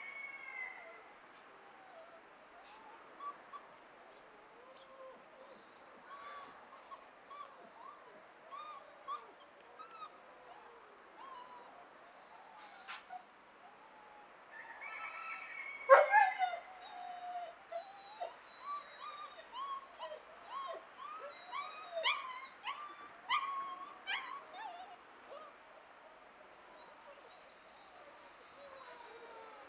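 Six-week-old puppy whining and yelping over and over while it is held on its back and lifted, with one sharp, loud yelp about halfway through.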